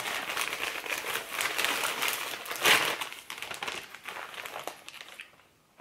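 Chip bag crinkling and rustling as it is handled and opened, with the loudest crackle a little past the middle; it stops shortly before the end.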